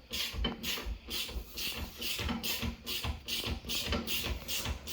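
Hand ratchet wrench worked quickly back and forth on a brake caliper bolt, the pawl rasping in even strokes about four times a second.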